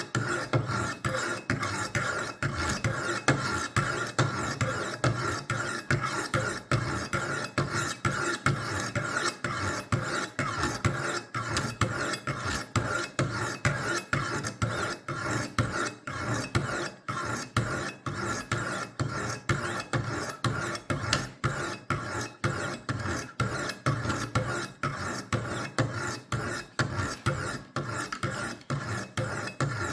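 Coarse 200-grit Wicked Edge sharpening stones rasping along a steel knife blade in quick, even, repeated strokes. The stones are grinding a new bevel onto a completely blunt butter knife.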